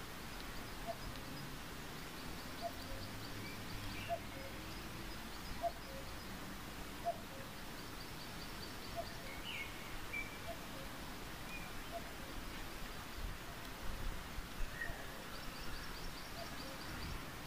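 Nature ambience: a steady hiss with birds chirping and giving quick high trills, and a short low call repeating about every one and a half seconds.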